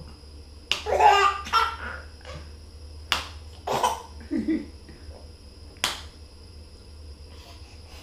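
An adult's hand claps, four single sharp claps a second or two apart, with a baby laughing in bursts after the first clap and again around the middle.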